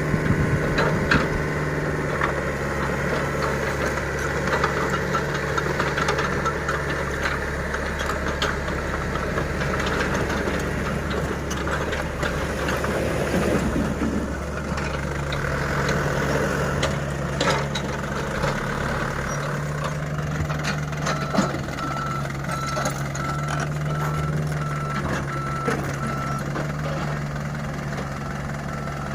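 Diesel engines of a mini excavator and a dump truck running steadily, with scattered knocks and clatter of river stones being loaded. From about two-thirds of the way in, a backup alarm beeps in a regular series.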